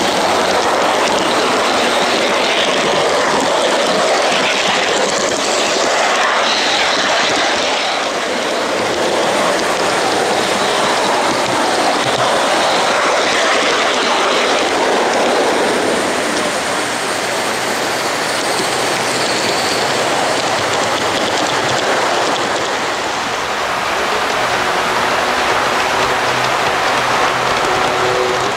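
G-scale model trains running on a garden railway layout, under a steady loud hiss that carries on without a break.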